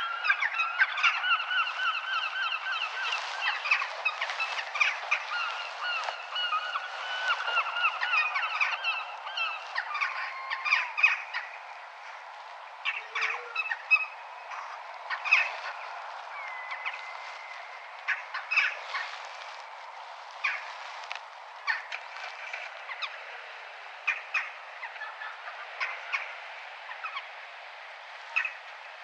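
A crow calling noisily over faint town background noise: a long run of fast repeated calls for about the first ten seconds, then short separate caws every second or two.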